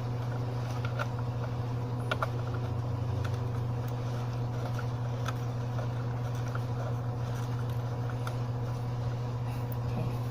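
A steady low mechanical hum, with a few faint clicks and taps from parts being handled.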